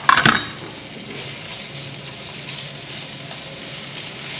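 Sliced onion sizzling as it sautés in olive oil in a frying pan, stirred with a spatula. A few short knocks come in the first half-second, then a steady crackling sizzle.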